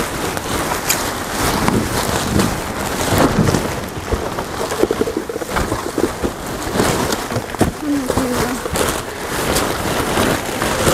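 Rummaging through trash and boxes in a dumpster: a continuous rustle and clatter with many scattered knocks as things are moved about.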